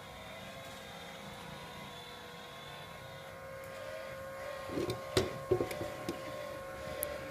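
A steady machine hum with a constant whine, joined about five seconds in by a few short, sharp knocks or clicks.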